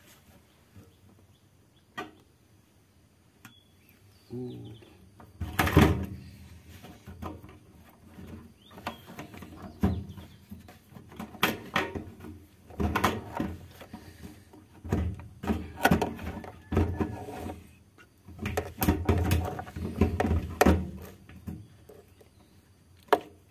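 Irregular clunks, knocks and rustling of a plastic fuel pump assembly and its rubber fuel hoses being handled and fitted into the fuel tank opening. It is quiet with a few single clicks at first, and the handling noise starts about five seconds in.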